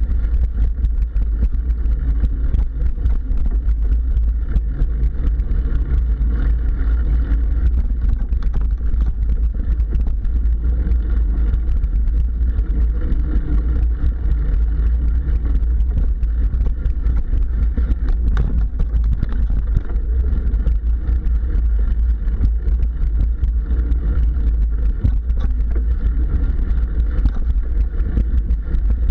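Mountain bike riding over a dirt singletrack trail, heard through a camera mounted on the bike: a steady low rumble of wind and vibration on the microphone, with many small irregular knocks and rattles from bumps in the trail.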